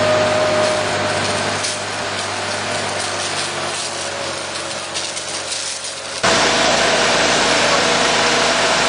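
A fire hose stream spraying over a fire engine, with a rushing hiss and a steady engine running underneath. About six seconds in it cuts abruptly to a louder, steady engine running with a rushing noise.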